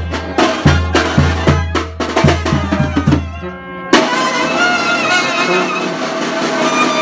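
A brass band playing a dance tune: deep sousaphone bass notes and drum beats about two a second under trumpets. A little past three seconds the music drops away, and at four seconds it comes back abruptly as higher brass lines without the bass.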